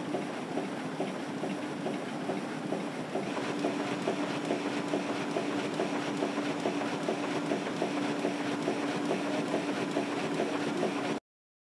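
Banknote-production machine applying silver foil stripes to a paper web, running with a dense, rapid clatter over a steady hum. The hum grows stronger about three seconds in, and the sound cuts off abruptly near the end.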